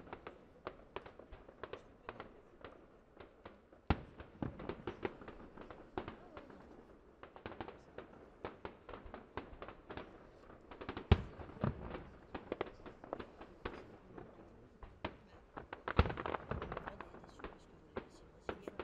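Aerial firework shells bursting at a distance: an irregular run of sharp bangs and pops, with the loudest reports about four, eleven and sixteen seconds in.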